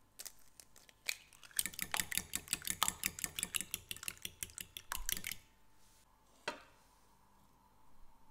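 Fork beating a raw egg in a small ceramic bowl: rapid clinking strokes, about six a second, for roughly four seconds, then one last clink.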